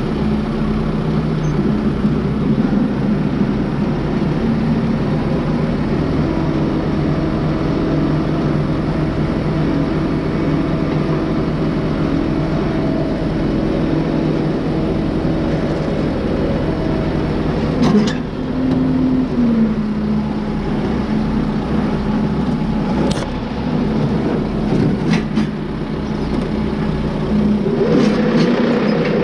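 Kubota M6060 tractor's diesel engine running steadily under load as it pulls a rear grader blade through dirt. A few sharp clicks and knocks are heard along the way. The engine note shifts just after the middle and rises again near the end.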